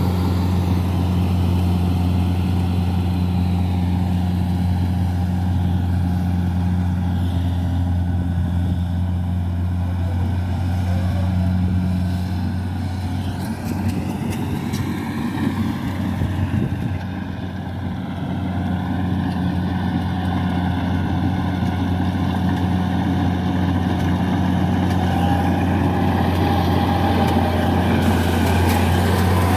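Kubota DC-70 Plus rice combine harvester running steadily under load while cutting ripe rice: a constant engine drone with the cutting and threshing machinery. It grows a little quieter in the middle as the machine moves farther off and comes back up near the end.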